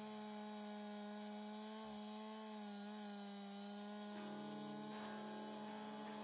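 Two-stroke chainsaw held at full throttle, cutting through a large tree trunk, its engine note steady and high.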